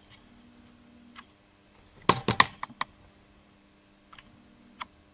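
Small metallic clicks of a piston ring and its coil expander spring being worked by hand into a piston's ring groove: a quick cluster of sharp clicks about two seconds in, with a few faint ticks either side.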